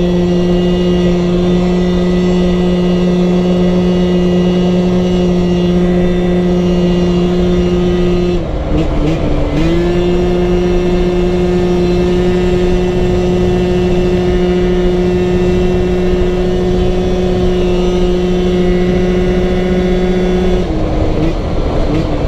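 Scooter's 86cc big-bore engine running hard at a steady, high, held pitch, the CVT with 8.5 g roller weights keeping the revs constant, with wind rushing over the microphone. About eight seconds in the revs dip briefly and climb back, and near the end they drop again.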